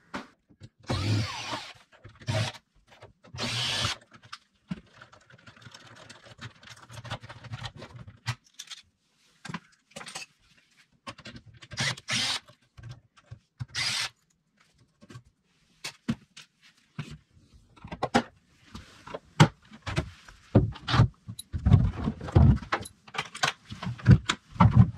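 A cordless drill/driver backing screws out of a door's latch plate in short runs, among clicks of loose hardware. Near the end come louder knocks and thumps as the wooden door is handled.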